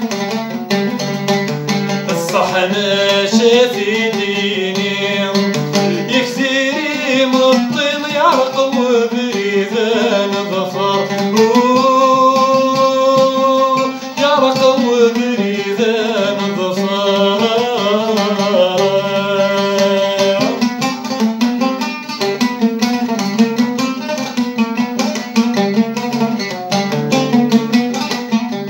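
A man singing to his own oud accompaniment, with sliding, ornamented vocal lines and one long held note about halfway through. Around two-thirds of the way in the voice drops out and the oud plays on alone.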